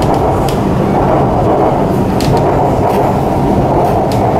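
Steady running noise of a Shanghai Metro Line 9 train at speed, heard inside the carriage, with a few brief clicks over it.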